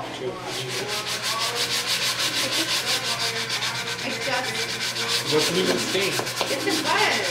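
Sanding sponge rubbed rapidly back and forth over a grey-stained wooden wagon bed, a rhythmic scratchy rasp of about five strokes a second.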